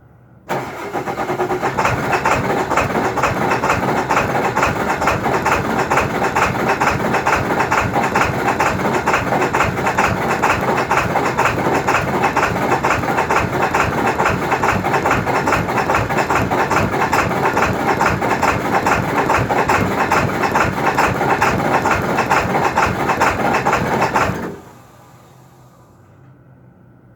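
2002 Ford F-350's 7.3 V8 Power Stroke diesel being cranked by its starter, a rhythmic chugging that runs for about 24 seconds and then stops suddenly. This is a hard start, caused by a bad glow plug relay.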